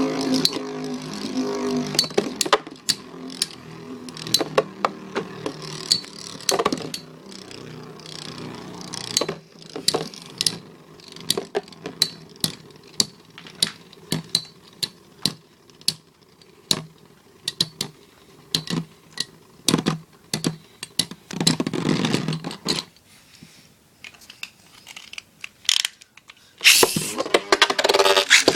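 Two metal Beyblade spinning tops, Blitz Unicorno and Lightning L-Drago, whirring in a stadium and clashing, with many sharp clicks as they hit. The whirring dies down, and a loud burst of whirring and rattling comes near the end.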